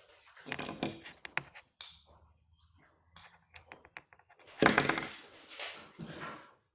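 Scattered light knocks and clicks in a small room, with a louder scraping, rustling burst a little past four and a half seconds in.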